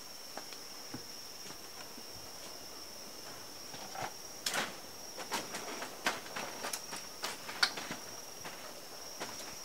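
Faint rural ambience: a steady high-pitched insect drone, with scattered light clicks and scuffs of people moving about, clustered from about the middle of the stretch.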